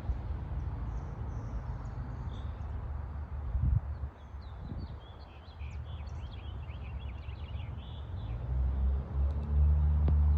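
Birds chirping over a steady low rumble of distant traffic, with one thump a little past a third of the way in; a vehicle's low hum swells near the end.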